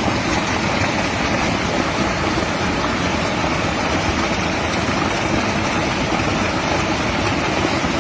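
River water rushing steadily: a dense, even wash of water noise that does not change.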